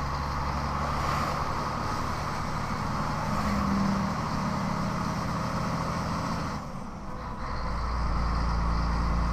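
Scania 113's 11-litre straight-six diesel engine pulling a loaded truck uphill. About seven seconds in, it briefly drops away during a gear change, then pulls again with a deeper, louder tone.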